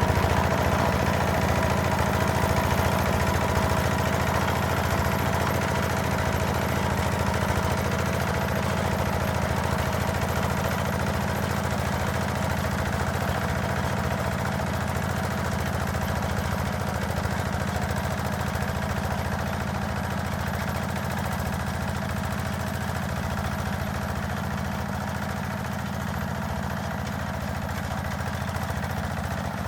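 Engine of a heavy walk-behind tractor running steadily as its rotary tiller cuts virgin ground, slowly growing fainter.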